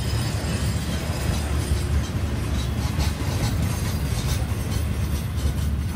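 Double-stack intermodal well cars of a freight train rolling past slowly: a steady low rumble of steel wheels on the rails, with scattered clicks and knocks from the wheels and cars.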